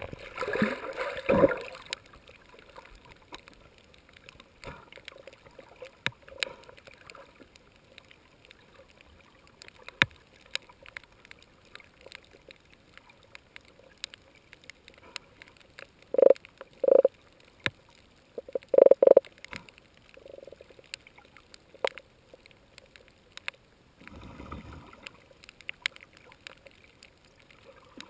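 Underwater sound heard through a GoPro's waterproof housing: muffled splashing in the first second or two, scattered sharp clicks, and a few short low bursts a little past the middle.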